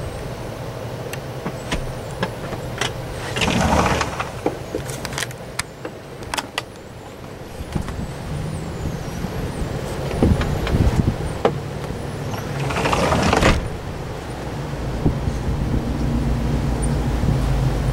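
Gusty wind buffeting the microphone with a steady low rumble, swelling into two louder gusts about four seconds in and around thirteen seconds, with scattered sharp clicks and rattles.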